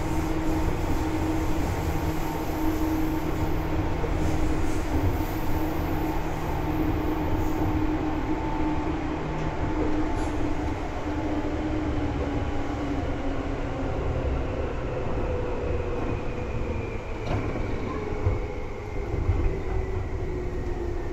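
Seibu 2000 series electric commuter train running, heard from inside the car: a steady rumble of wheels on rail with a motor and gear whine. From about halfway through the whine slowly falls in pitch as the train slows.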